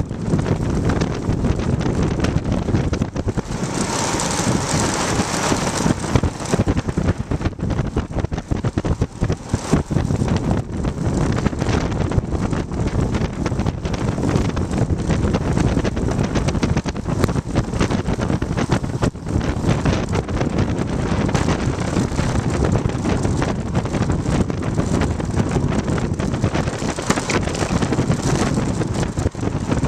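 Wind buffeting the microphone of a bike-mounted camera on a fast road-bike descent, with a steady low rumble and constant small rattling knocks from the bouncing homemade mount. A brighter hiss swells briefly about four seconds in.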